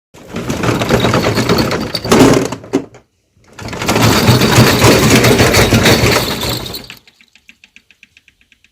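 Two long bursts of loud, harsh noise as part of a made-up emergency alert alarm, split by a short gap about three seconds in. They are followed by a faint, rapid ticking that fades away.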